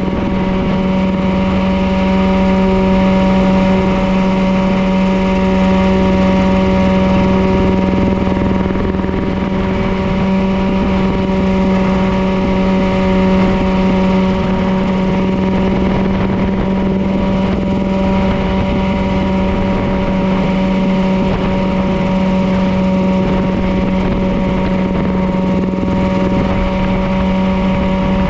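Mirocopter SCH-2A coaxial ultralight helicopter in level cruise flight: engine and rotors make a loud, steady drone that holds one pitch throughout.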